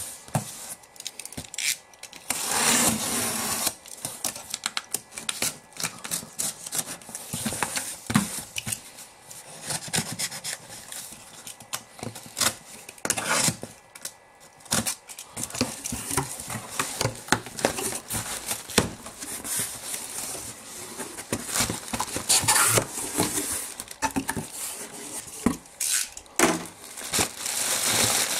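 A cardboard shipping box handled and opened: a utility knife slitting the packing tape in several long rasps, among scrapes and knocks of the cardboard, then plastic air-pillow packing crinkling near the end.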